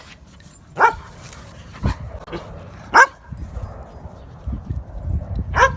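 A dog barking four times: short single barks, the first three about a second apart.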